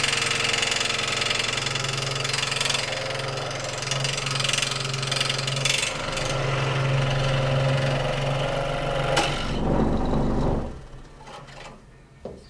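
Electric scroll saw running, its reciprocating blade cutting through old painted scrap wood with a steady machine hum. The saw stops about two seconds before the end, and a single light knock follows.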